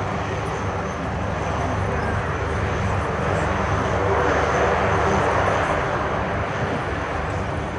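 Military aircraft engine noise as a plane flies past, swelling to its loudest about halfway through and then easing off.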